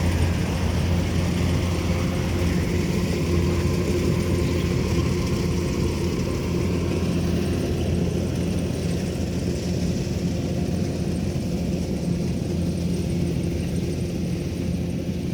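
Rice harvester's engine running steadily at a constant speed, a low hum that grows slightly fainter towards the end.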